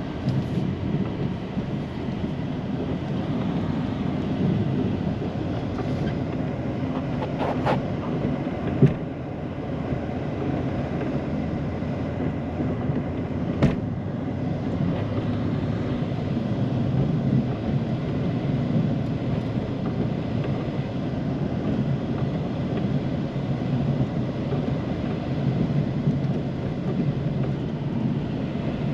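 Snow plow truck running steadily while plowing, a constant low vehicle noise, with a single knock about nine seconds in and a sharp click around fourteen seconds.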